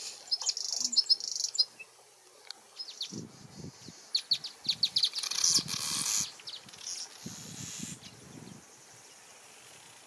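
Small weaver-family songbirds, a red bishop and a southern masked weaver, giving quick high chirps in clusters, with a buzzy chatter about five to six seconds in. A high insect drone stops in the first two seconds, and a few low rumbles come between the calls.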